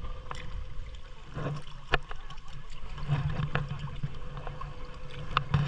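Water splashing and trickling around a small boat being paddled, with scattered knocks; the sharpest comes about two seconds in and another near the end.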